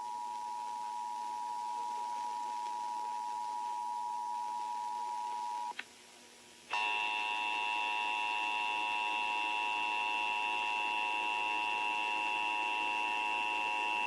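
Emergency Alert System two-tone attention signal, a steady chord of two close pitches, cuts off about six seconds in. After a click and a second's pause, a second alert tone comes on, louder, higher and buzzier, and holds steady.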